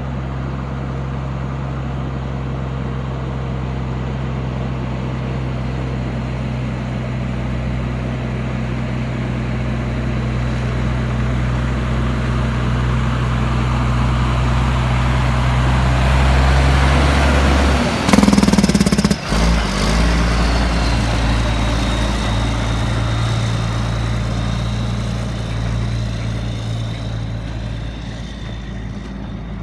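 Dump truck's diesel engine running steadily and growing louder as it approaches, with a short loud hiss a little over halfway through; the engine then carries on and fades toward the end.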